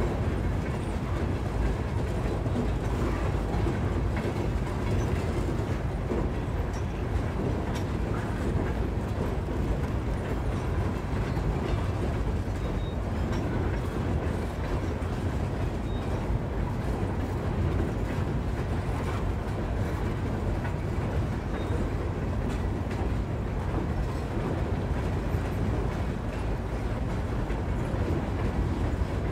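Coal train's freight cars rolling across a steel truss railway bridge: a steady, unbroken rumble of wheels on rail.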